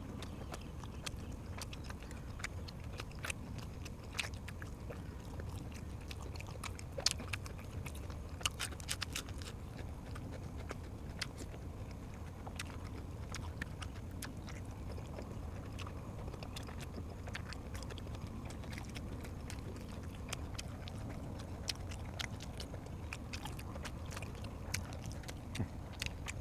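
A person chewing and biting food close to the microphone, with scattered sharp mouth clicks and crunches over a steady low hum.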